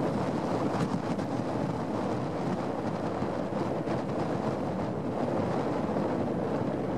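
Wind buffeting the microphone, a steady rush of noise, over the sound of choppy lake water.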